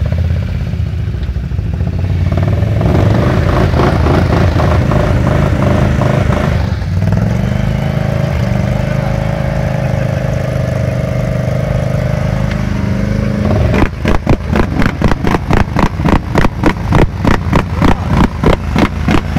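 BRP Can-Am 800 ATV's V-twin engine revving hard under load as the quad churns through deep mud with its wheels spinning, the pitch rising and falling. Near the end the sound turns into a rapid, regular pulsing.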